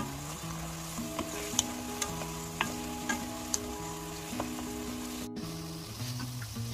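Soy-sauce braising liquid with eggs and king oyster mushrooms bubbling and sizzling in a pan, with a dozen or so sharp utensil clicks, under soft background music.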